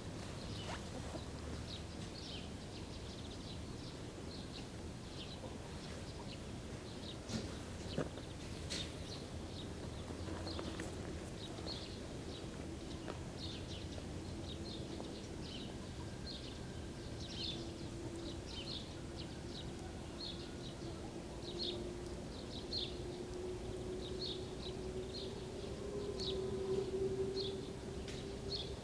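Spring village dawn ambience: small birds chirping over and over, high and short, against a low background rumble. About ten seconds in, a faint steady hum sets in and slowly grows louder toward the end.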